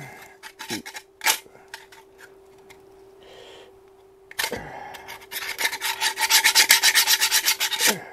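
A stiff brush scrubbing grime off SU carburettor parts: a few scattered taps and clicks, then from about halfway through a fast, even back-and-forth scrubbing at about eight strokes a second, the loudest part.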